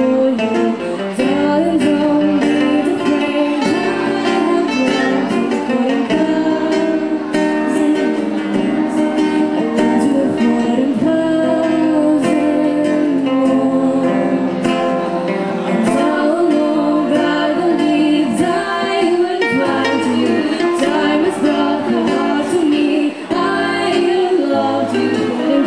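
A song: singing accompanied by guitar.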